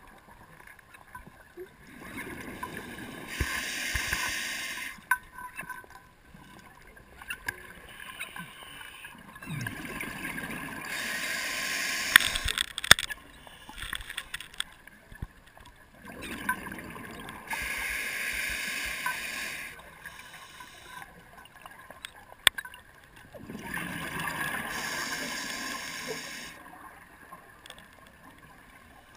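Scuba diver's regulator breathing underwater: four long exhalations, each a rush of bubbles lasting about three seconds, about seven seconds apart, with a few sharp clicks in between.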